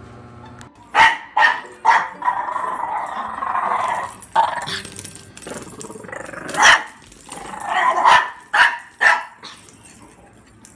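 Small puppy barking repeatedly in short, sharp barks, about ten in all, with a couple of seconds of continuous growling between the first few barks.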